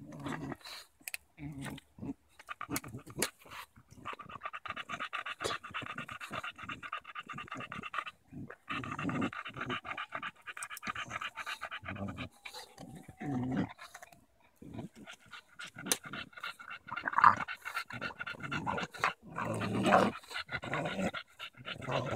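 English bulldog panting in short, rapid breaths while nosing and mouthing at a branch.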